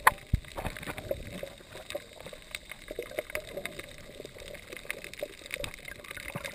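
Underwater sound of moving sea water, heard from just below the surface: a low, even wash dotted with irregular crackling clicks, with a couple of sharper knocks right at the start.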